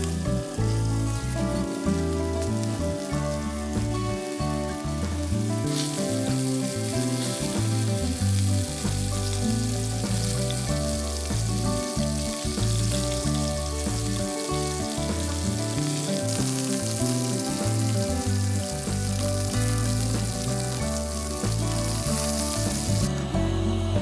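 Sausages sizzling and frying in a cast-iron skillet over a camp stove, a steady crackling hiss that grows louder about six seconds in and drops back near the end. Background music with shifting bass notes plays underneath.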